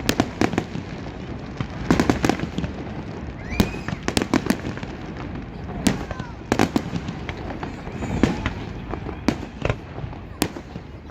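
Fireworks display: aerial shells bursting in sharp bangs, some in quick clusters with crackling, every second or so.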